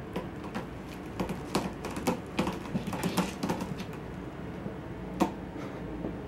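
Kitten claws scratching and tapping on a carpeted cat tree with sisal-rope posts as a kitten climbs and swats at a string toy. There is a run of quick, irregular scratches and taps from about a second in to nearly four seconds, then one sharp tap near the end.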